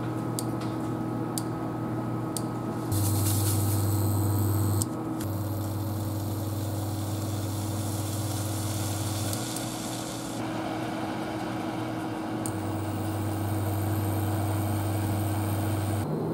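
Induction hob humming steadily as it heats a small pot of chopped strawberries, with a soft hiss of the fruit cooking for several seconds in the middle. There are a few light clicks near the start.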